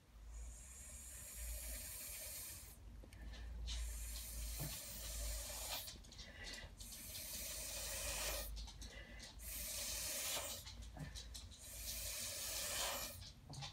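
Breath blown through a drinking straw onto wet acrylic paint: an airy hiss with a low rumble, in about five long blows of two to three seconds each, with short pauses between them.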